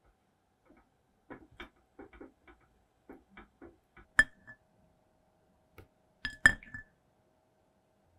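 Silicone spatula stirring melted chocolate in a glass mixing bowl: a run of soft, quick strokes, then two sharp clinks against the glass about two seconds apart, each leaving a short ring.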